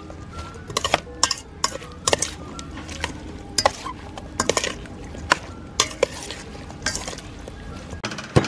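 Metal spoon tossing a wet shredded-vegetable and shrimp salad in a metal bowl: irregular clinks and scrapes of spoon on bowl, roughly one or two a second, with the soft squelch of the dressed vegetables.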